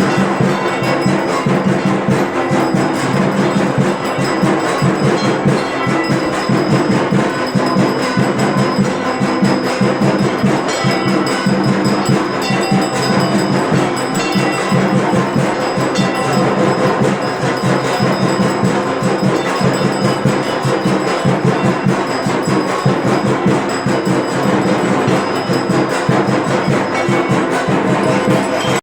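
Worship bells and metal gongs ringing continuously over dense, rapid percussion: the din of a Durga Puja aarati.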